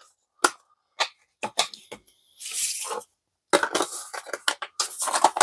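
The discs and the clear plastic disc tray of a steelbook case being handled by fingers. A string of sharp plastic clicks and snaps is broken by a short rustling scrape about two and a half seconds in, and the clicking gets denser in the last two seconds.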